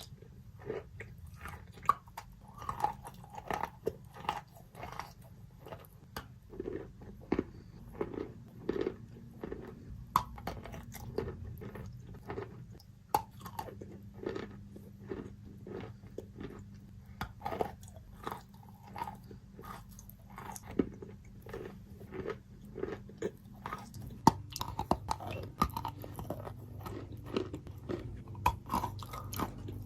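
Close-miked chewing with wet, soft crunches, several a second, over a steady low hum.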